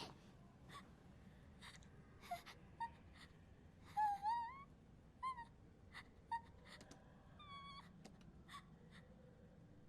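A voice whimpering and gasping in distress. It gives short wavering cries, the longest rising in pitch about four seconds in, among scattered soft clicks.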